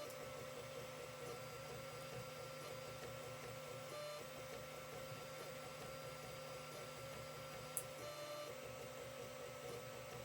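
Creality CR-10 3D printer at work: its stepper motors give a steady whine over a low hum, with brief shifts in tone as the moves change about 4 and 8 seconds in, and one short click near 8 seconds.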